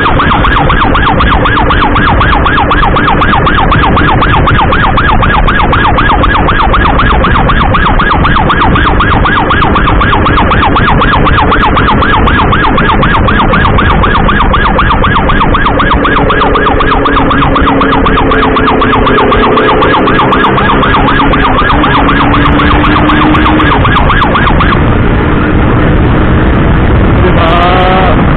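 Emergency siren in a fast, even warble over a motorcycle engine and heavy road and wind noise. The warble stops about 25 seconds in, and a rising siren tone starts up near the end.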